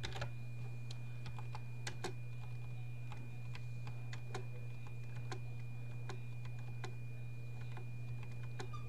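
Computer keyboard keys pressed one at a time, irregular clicks about two a second, over a steady low hum and a faint high whine.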